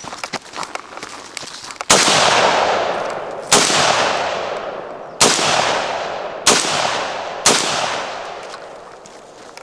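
Five AR-15 rifle shots fired one at a time, about one to two seconds apart, each followed by a long echo that fades away. Light footsteps and small clicks of movement come before the first shot, about two seconds in.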